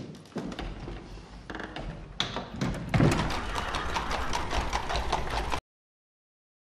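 Horse-drawn carriage pulled by two horses moving over stone paving: hooves clopping and wheels rumbling. It gets louder about three seconds in and cuts off suddenly near the end.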